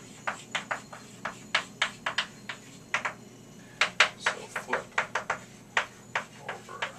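Chalk writing on a chalkboard: an irregular run of short, sharp taps and scratchy strokes, about three a second, as letters are written.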